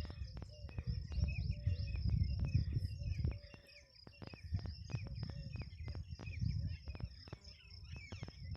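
Rural outdoor ambience: a steady high insect drone with short bird chirps, over an irregular low rumble of wind on the microphone.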